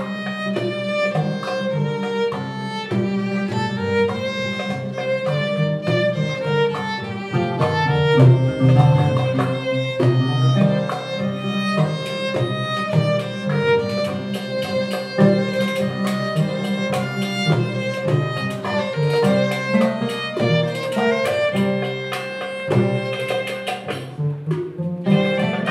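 Violin, oud and double bass playing together in a live chamber ensemble, the violin carrying the melody over plucked oud and a continuous bass line.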